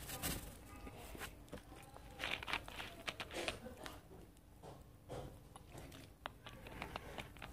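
Faint scattered clicks and crunches of someone chewing hot pepper and drinking from a plastic water bottle.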